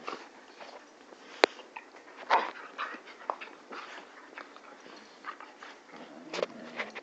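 Two puppies play-fighting close to the microphone: scuffling, mouthing and short puppy noises, with the fullest bursts about two and a half and six and a half seconds in. A single sharp click comes about one and a half seconds in.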